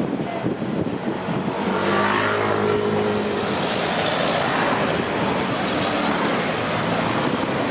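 Street traffic noise as a motor vehicle passes close by, its engine hum strongest about two to three seconds in, followed by tyre and road noise.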